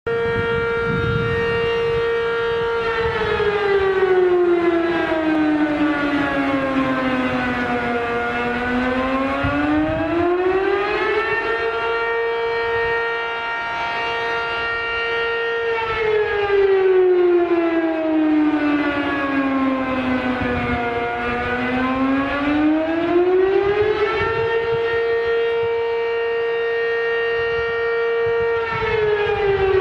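Fire station alarm siren sounding a slow wail: it holds a high pitch for a few seconds, glides down over about five seconds, then climbs back up and holds again. The cycle repeats about every thirteen seconds, with the third fall beginning near the end.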